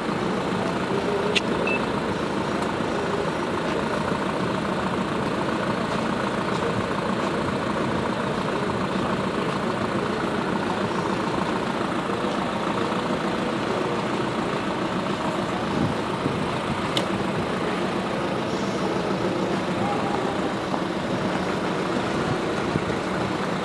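A truck's engine idling steadily.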